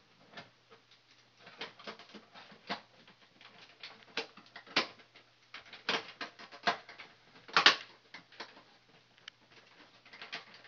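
Irregular plastic clicks, scrapes and knocks as a digital thermostat is handled and pushed onto its wall base plate. The loudest knock comes about three-quarters of the way through.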